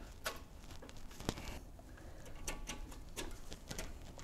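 Faint, scattered small clicks and rustling from hands working a plastic zip tie through the transmission cooler mount against the radiator condenser, pulling it tight.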